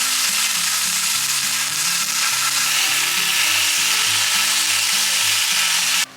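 Food frying on a hot griddle: a loud, steady sizzle that cuts off suddenly near the end, with background music underneath.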